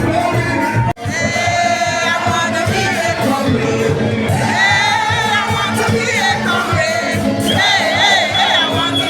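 Music with a singer's voice wavering over a steady accompaniment, cut off for an instant about a second in and then resuming.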